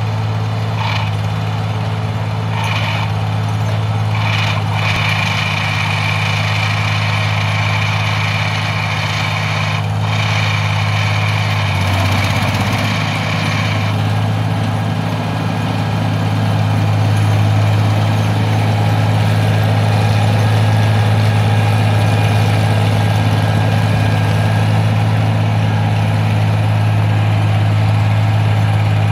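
V-6 engine of a New Idea 702 self-propelled forage harvester running steadily as the machine drives slowly. The engine note shifts briefly about twelve seconds in and runs a little louder from about seventeen seconds on.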